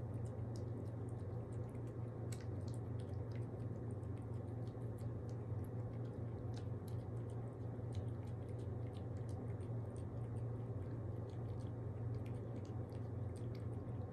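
A pet chewing and licking wet food, with many small irregular wet clicks and smacks, over a steady low hum.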